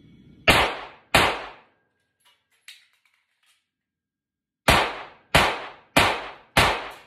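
Glock 43X 9mm pistol fired six times in a low-ceilinged basement, each shot ringing off the room: two quick shots, then a pause of about three and a half seconds with a couple of faint clicks while the magazine is swapped, then four more in quick succession.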